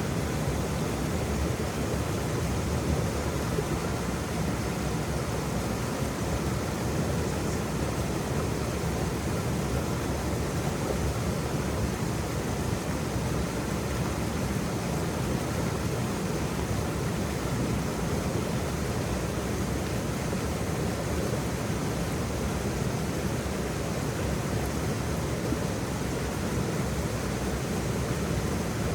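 Waterfall: a steady, unbroken rush of falling water, deep and even, with no change throughout.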